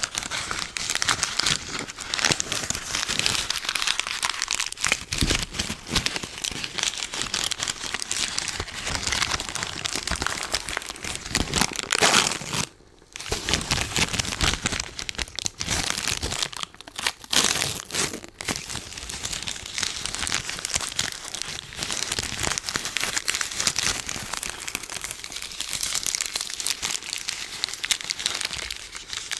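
Sticky lint-roller paper crackling and crinkling as it is peeled and handled up close, with one brief pause about thirteen seconds in.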